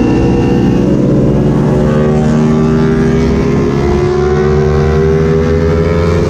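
Motorcycle engine running under acceleration, its pitch climbing slowly and steadily.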